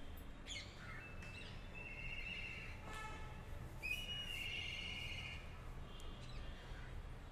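Birds chirping over a low hum of room tone: a few quick chirps falling in pitch, then two short trills, the second one longer.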